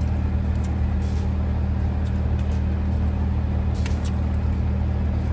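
Steady low hum of a car running, heard from inside the cabin, with a few faint clicks.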